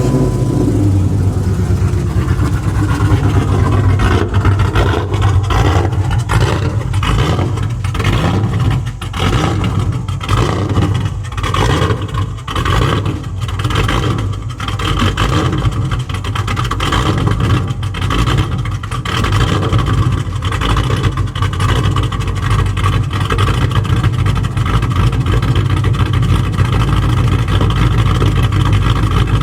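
A Dodge Charger's 5.7-litre Hemi V8 running steadily just after starting, its level rising and falling a little in the first half.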